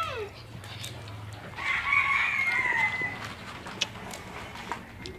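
A rooster crowing once, starting about one and a half seconds in: a long held call that drops in pitch at the end. A few faint clicks follow.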